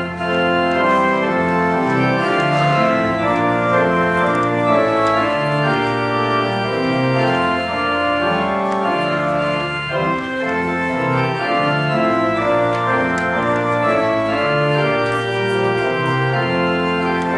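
Organ music: slow, sustained chords with a bass line stepping beneath them.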